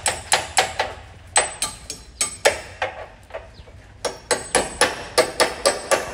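Claw hammer driving a small nail at the edge of a steel door frame: quick, light, ringing taps about three or four a second, in two runs with a short pause about midway.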